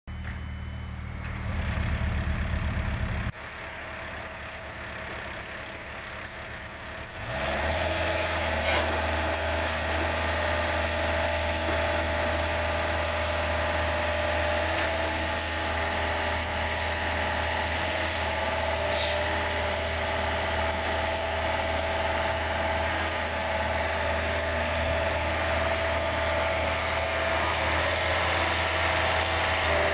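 Takeuchi TB250 mini excavator's diesel engine running, first at low speed with a pulsing beat. About seven seconds in it rises to a steady higher speed and holds there as the boom and arm are worked.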